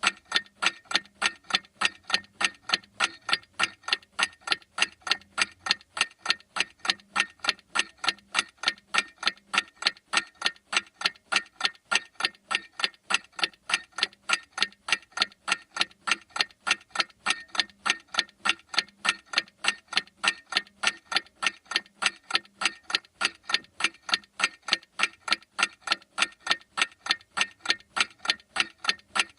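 Mechanical clock ticking in a fast, perfectly even rhythm of sharp clicks, several a second, unchanging throughout.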